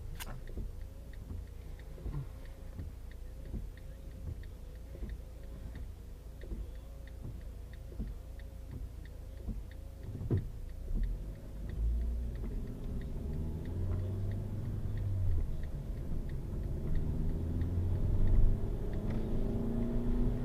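Car engine heard from inside the cabin through a dashcam microphone: a low running rumble with a regular light ticking for the first half. About halfway through, the engine note grows louder and rises as the car drives off.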